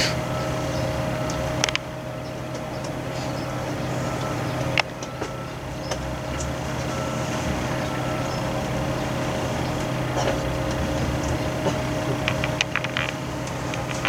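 Steady mechanical hum with a faint whine, broken by a couple of sharp knocks, one about two seconds in and one about five seconds in.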